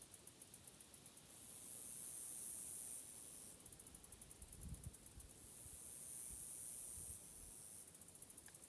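High-pitched insect chorus, switching every couple of seconds between a steady hiss and a fast pulsing trill. A few soft low thumps come about halfway through.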